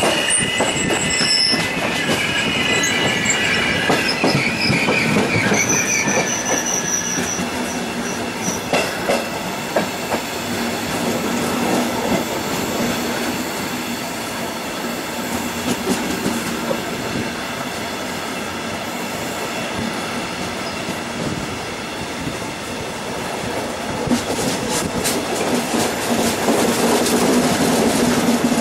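Passenger train running along the track, heard from the side of a moving carriage: a steady rumble of wheels on rail with scattered clicks. High wheel squeal sounds over the first few seconds and fades out by about seven seconds in.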